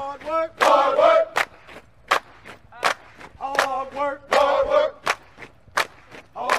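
Voices chanting short, pitched phrases in rhythm over a sharp percussive strike that falls about every three-quarters of a second, with lighter strikes between: a work-song beat.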